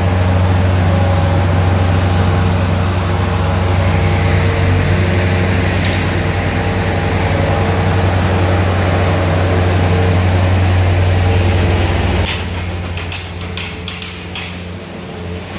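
A large engine running steadily with a deep hum, easing off about twelve seconds in, followed by a quick run of sharp knocks.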